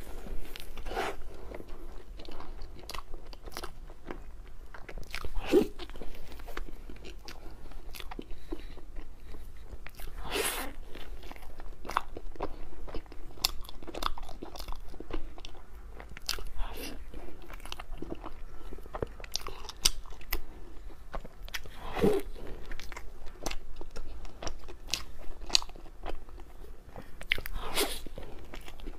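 A person biting and chewing a soft cream-filled mochi, making irregular clicking mouth sounds, a few of them louder.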